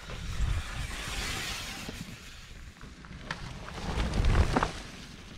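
A mountain bike riding past on a wet, muddy trail: tyre hiss that swells about a second in, a few rattling clicks from the bike near the end, and wind rumbling on the microphone.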